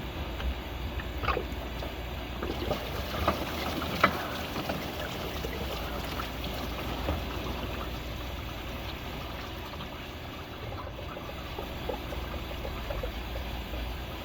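Car engine running with a steady low hum and rough noise, with a few sharp ticks in the first few seconds. It is likely the grinding noise that the title ties to a failing water pump.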